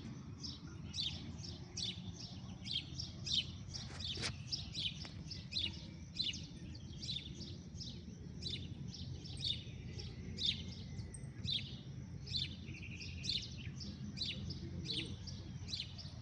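Small birds chirping, a rapid string of short high chirps, about two or three a second, over a low steady background noise.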